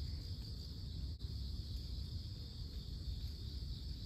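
Steady high-pitched insect song, crickets, running continuously over a low rumble, with a brief dropout about a second in.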